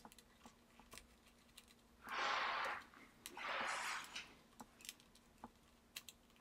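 Light scattered clicks and taps of small screws and a screwdriver on the metal and plastic of a white MacBook's battery compartment. Two short rushes of hissing noise come about two and three and a half seconds in.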